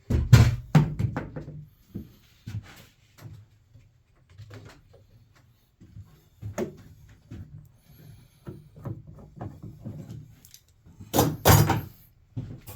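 Irregular wooden knocks, clunks and scrapes of boards being handled: the DIY track saw jig being moved on the table top after the cut. The heaviest clunks come right at the start and again about eleven seconds in.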